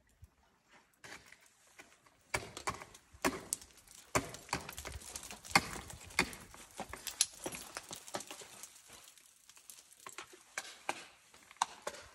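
Ice tools and crampon points striking ice in irregular sharp knocks. The knocks start about two seconds in, are densest for the next several seconds, then come sparser.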